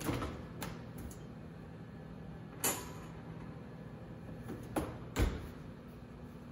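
Kitchen wall oven door pulled open with a knock, a sharp metal clank from inside the oven partway through, then the door shut with a deep thump about five seconds in.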